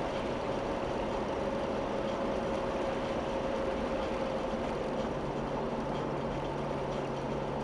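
Jeep driving at a steady speed, heard from inside the cabin: an even rush of tyre and road noise under a steady engine hum that steps up slightly in pitch about five seconds in.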